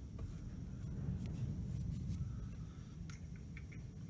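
Faint scratchy strokes of a small paintbrush on a hardened filler surface, over a steady low rumble, with a few light clicks about three seconds in.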